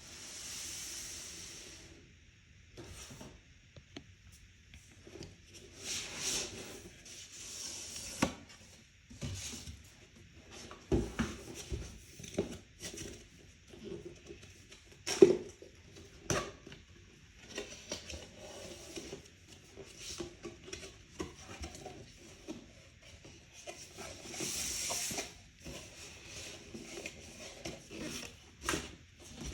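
Unboxing handling of a camera's box and packaging: rustling and rubbing with many scattered clicks and knocks, one sharper knock about halfway through.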